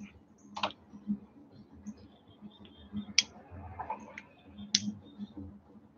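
A few short, sharp clicks and small handling sounds from a small perfume sample vial being worked with the fingers, three of them louder than the rest.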